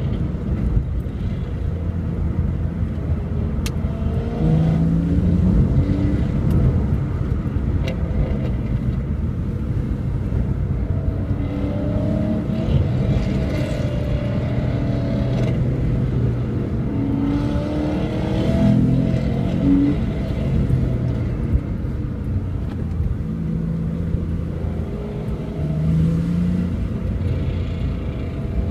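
Holden HSV GTS V8 exhaust heard from a following car, pulling hard in about four rising bursts of acceleration over a steady engine and road drone, with a couple of sharp pops from the exhaust.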